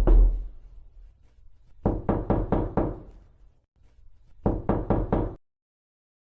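Knocking on a door in three bursts: a couple of knocks at the very start, a run of about six quick knocks about two seconds in, and about five more near the end.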